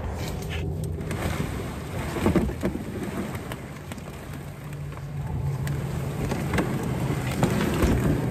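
Brush and dry leaves rustling and scraping, with scattered crackles of twigs and footsteps, as a canoe is hauled down through the woods; a low steady drone runs underneath.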